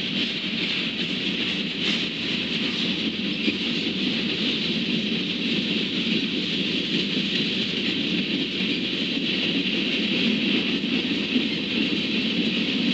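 Freight train's covered hopper cars rolling past: a steady noise of steel wheels running on the rails.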